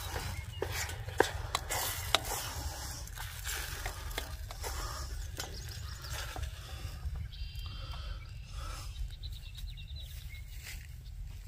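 A plastic spatula stirs and scrapes scrambled eggs and sliced sausage around a metal frying pan, with sharp clicks and scrapes against the pan over a soft sizzle. A low steady rumble lies underneath.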